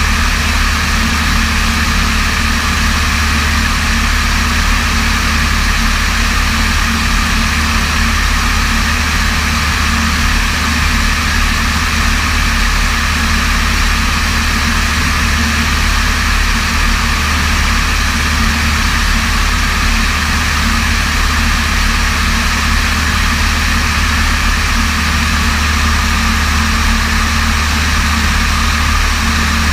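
Light aircraft's piston engine and propeller running steadily in flight, heard from inside the cabin as a constant loud low hum under an even rush of airflow hiss.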